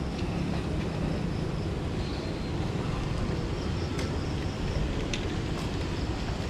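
Steady outdoor background noise, a low rumble with hiss above it, with a couple of faint clicks about four and five seconds in.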